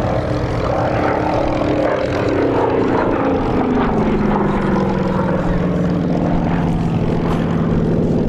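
SAAB B17A's Pratt & Whitney Twin Wasp radial engine and propeller at full power on a fast low pass. The engine pitch drops clearly as it goes by, then holds steady and lower.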